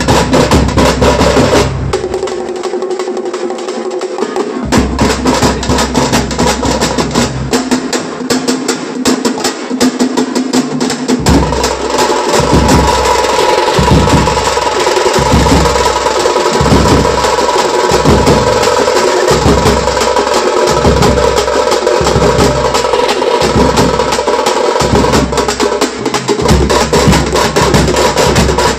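Loud festival procession drumming: fast, dense drum strokes throughout. About eleven seconds in, a heavy low beat sets in somewhat faster than once a second, along with a steady held tone.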